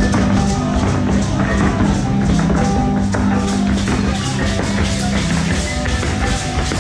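Lively Latin American folk-dance music with a quick, steady beat and a melody over a held bass note.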